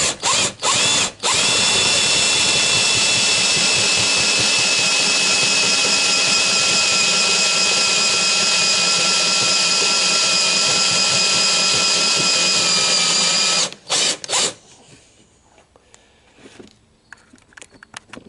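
Cordless drill with a step bit boring through a thin metal plate: a few short trigger bursts, then a steady run of about twelve seconds with a whine, ending in a couple of short bursts about fourteen seconds in.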